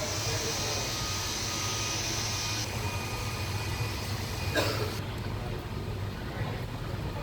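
Ceiling fans running in a store, with a steady low hum and rushing air that drops away abruptly twice. There is a single short knock about four and a half seconds in.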